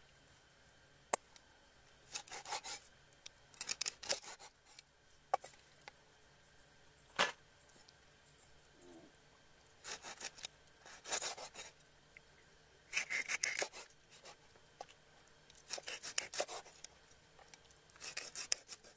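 Large knife cutting a scaly fish into pieces on a wooden chopping block. Short bursts of rasping come every few seconds as the blade saws through the scaly skin and flesh, with a few single sharp knocks of the blade striking the board, the loudest about seven seconds in.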